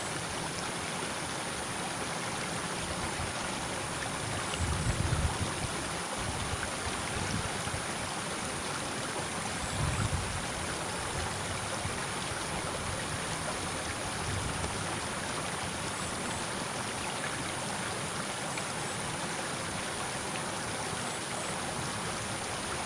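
Steady rushing of water flowing in a drainage ditch, with two brief low rumbles about five and ten seconds in.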